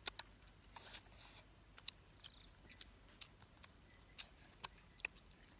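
A dozen or so faint, scattered clicks and smacks of mouth and hands while eating roast duck with the fingers: chewing, lip smacks and picking at the meat.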